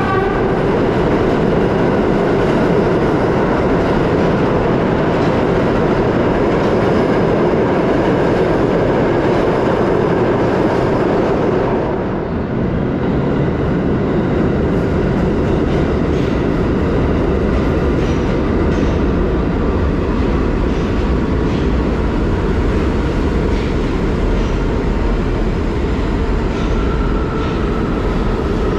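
New York City subway trains running slowly past the station platform, a steady rumble of wheels on rails. The sound shifts abruptly about twelve seconds in.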